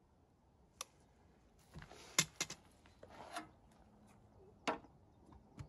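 Handling sounds at an open paint bucket: a few sharp clicks and short scrapes of a paint stirrer and a plastic cup against the bucket. The paint is being thinned and mixed because it is too thick for the sprayer.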